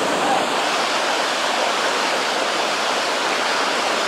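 River rapids: a steady, even rush of churning whitewater.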